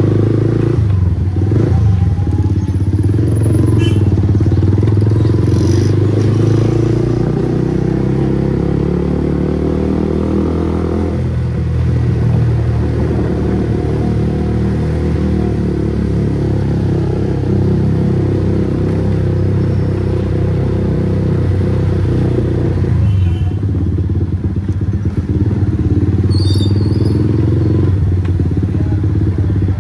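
Loud exhaust note of a Bajaj Pulsar NS160's single-cylinder engine through an aftermarket Akrapovic GP full-system exhaust, running steadily under the rider's throttle. The note drops twice, about eleven seconds in and again near twenty-three seconds.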